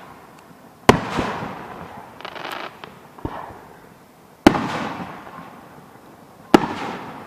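Aerial fireworks shells bursting: four loud booms, each trailing off in a long rolling echo, with a few smaller pops and a short hiss between them.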